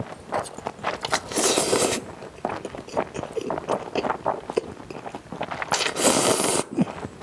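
Close-miked slurping of spicy cold noodles (naengmyeon) in broth, with two long slurps, one about a second in and one near the end, and wet chewing and mouth smacks between them.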